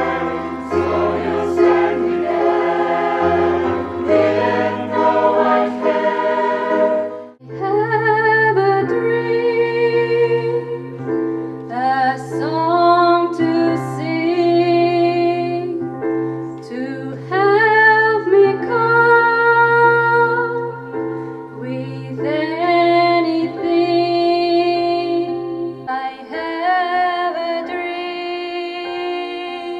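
Mixed amateur choir singing a pop song in several parts over a held low accompaniment note, with a brief pause about seven seconds in. Near the end the low note stops and a woman sings a solo line into a microphone.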